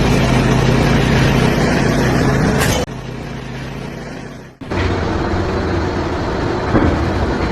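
An engine running loudly and steadily, with a low hum. It cuts off abruptly about three seconds in and comes back loud about a second and a half later.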